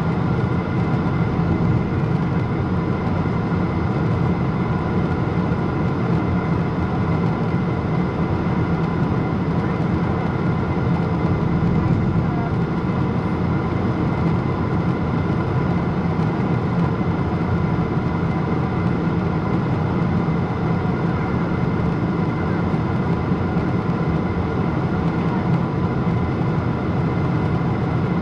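Steady cabin noise of a Boeing 777-200ER in flight: an even rush of engine and airflow noise under a few faint steady whining tones.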